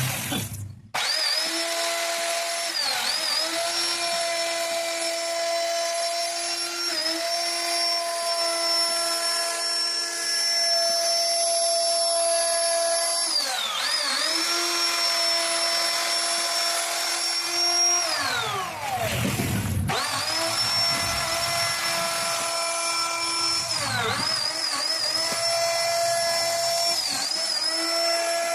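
CNC router spindle cutting wood, a steady high whine whose pitch sags and recovers several times as the bit takes load. It breaks off briefly about a second in, and about two-thirds of the way through its pitch slides down and comes back up.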